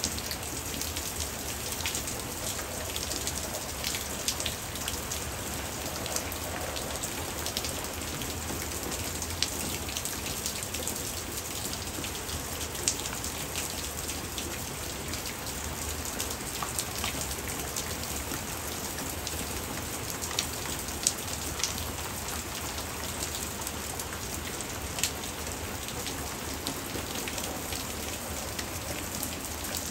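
Hard rain falling steadily, a continuous patter of many drops with scattered sharper, louder drop hits.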